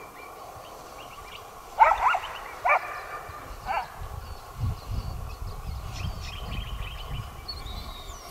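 Pig-hunting dog barking in the reeds, about four sharp barks, two of them close together: the dog opening up on pigs it has found. A low rumbling noise follows.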